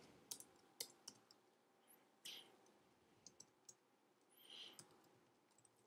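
Faint computer-keyboard keystrokes: a few sharp single clicks with long gaps between them, near silence in between.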